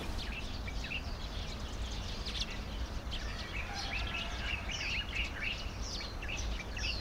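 Many small birds chirping in quick, overlapping calls, some of them short falling whistles, over a steady low background rumble.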